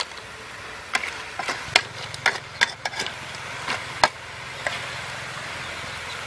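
A metal spatula stirring whole crabs in a hot wok, clacking and scraping against the pan and the crab shells about ten times over a steady frying sizzle; the clacks stop about two-thirds of the way through, leaving the sizzle.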